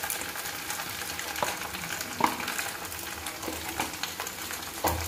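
Macaroni and fresh cream sizzling in a metal kadhai on the gas flame, with a steel spatula knocking and scraping against the pan several times as it is stirred.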